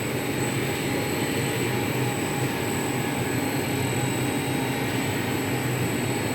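A new yogurt-production machine running steadily under test at a low pressure setting of about 1 to 2 bar: a constant mechanical hum with a low drone and a thin, steady high whine.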